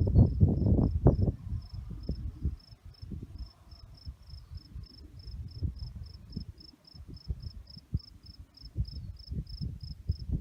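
A cricket chirps steadily, even high-pitched chirps at about four a second. Under it are irregular low rumbling thumps, loudest in the first second and a half.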